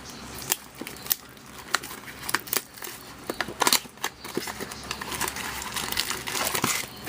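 Plastic wrap crinkling and tearing as a sealed mini box of trading cards is unwrapped, with many sharp crackles throughout and denser rustling near the end.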